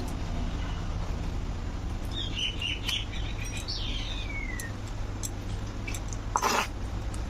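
A bird chirps a few times about two seconds in, then gives a single call falling in pitch. A brief clatter comes near the end, over a steady low hum.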